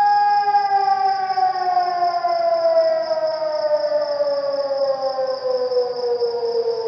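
Civil defence siren holding one steady tone, then its pitch sliding slowly and evenly downward as it winds down. It is the siren sounded across Cyprus each year on 20 July as a remembrance signal. A steady high insect buzz runs underneath.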